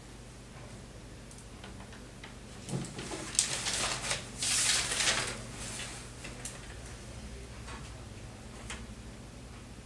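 A few seconds of rustling and clicks, loudest around the middle, over a steady low hum.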